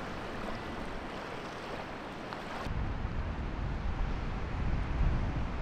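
Shallow sea water washing over a tidal causeway, with wind. A little under three seconds in, the sound changes abruptly to wind buffeting the microphone.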